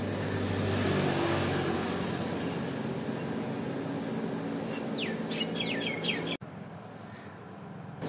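Steady engine hum of a passing motor vehicle, swelling about a second in, with a bird giving a run of quick falling chirps about five seconds in. The background then drops suddenly to a quieter hush.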